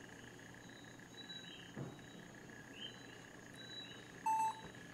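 Faint background of coquí frogs chirping, short rising calls repeating every second or so over a steady high whine. A soft knock about two seconds in, and near the end a short electronic beep, the loudest sound, as the camcorder's record button is pressed to stop recording.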